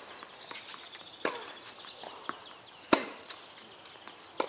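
Tennis rally on a hard court: rackets striking the ball and the ball bouncing. There are four sharp pops, the loudest about three seconds in.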